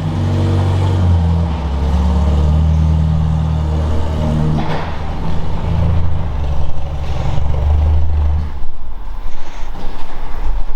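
Car engine running, its pitch rising and falling as it is revved, then stopping about eight seconds in; a few clanks follow.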